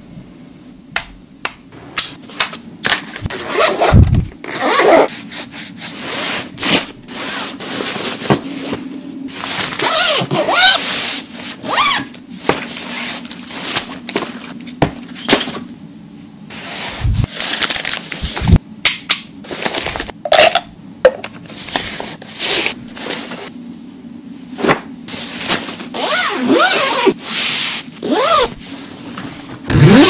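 Close-up packing handling sounds: small plastic gadgets picked up and set down with sharp clicks and taps, fabric rustling as a towel is folded into a pouch, and rasping zipper pulls.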